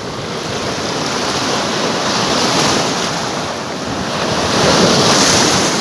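Sea surf washing in against shoreline rocks, swelling twice, with wind buffeting the microphone.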